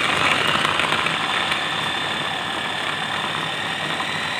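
Small capsule blender's electric motor running at full speed, held on by pressing down its top, its blades chopping tomato pieces in a little water into a purée. Steady high whine over the noise of the blades, and the blender is working properly.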